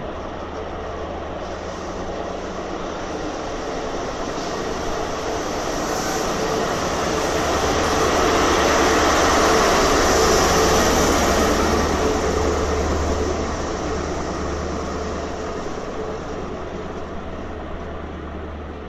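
A departing InterCity 125 High Speed Train passes close by: the Mark 3 coaches roll past, then the rear Class 43 power car's diesel engine and cooling fans go by loudest about ten seconds in. The sound then fades as the train pulls away.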